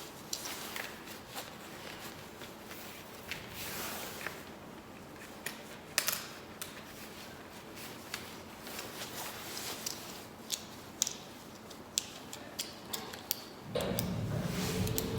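Scattered small clicks and handling noises, several a second at times, over a faint background; about a second before the end a steadier low rumble comes in.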